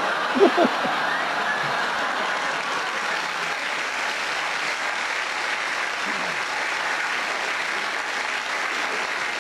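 Theatre audience applauding a stand-up comedian's punchline: a steady, even wash of clapping, with a brief louder moment about half a second in.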